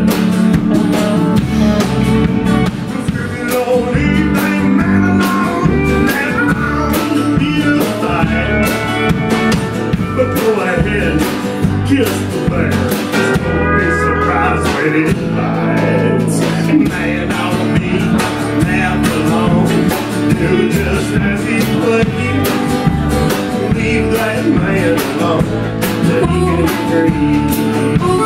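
A country-blues band playing live: steel guitar, bass, guitar and drums over a steady beat.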